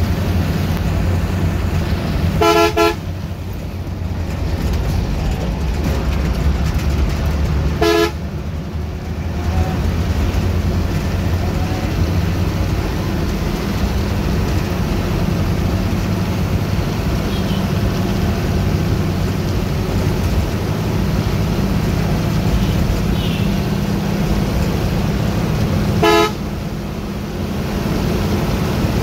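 Bus engine running steadily, heard from inside the cabin, with three short honks of a vehicle horn: one about two seconds in, one about eight seconds in, and one near the end.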